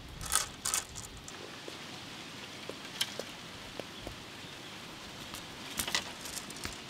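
A few sharp light clicks of bamboo skewers knocking together as they are handled and pushed into raw potatoes: two right at the start, one about halfway, and two near the end, over a steady soft hiss.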